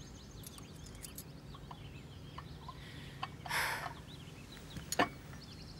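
Faint farmyard background of chickens clucking and small birds chirping, with a brief soft rustle about three and a half seconds in and a sharp click near five seconds.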